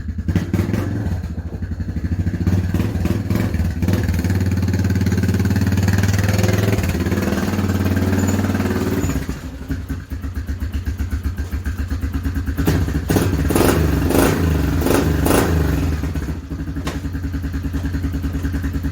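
1997 Polaris Magnum 425 ATV's single-cylinder four-stroke engine running under steady throttle, dropping back to a lower speed about nine seconds in, then revved up and down a few times.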